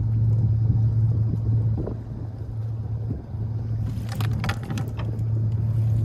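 A steady low engine hum, with a brief burst of clicking and rattling about four seconds in.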